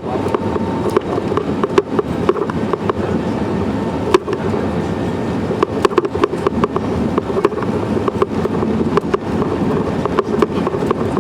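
Airbus A320neo cabin noise during departure: a steady engine and air rumble with many short, irregular clicks and knocks of the cabin rattling.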